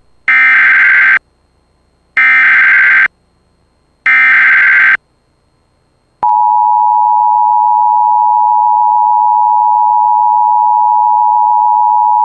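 Emergency Alert System signal announcing a flash flood warning. Three short bursts of SAME digital header tones come about two seconds apart, then about six seconds in the steady two-tone EAS attention signal starts and holds.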